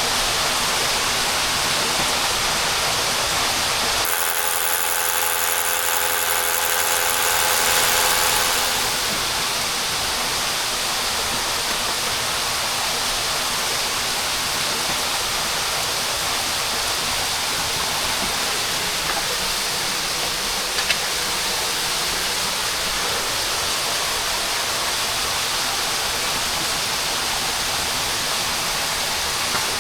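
Steady rush of falling water in a cave. From about four to eight seconds it grows a little louder, with a faint steady whine in it.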